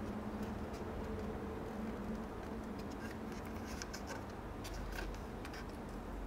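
Mechanical pencil scratching on a thin white oak strip as it is marked, in a few short, light strokes, over a steady low hum.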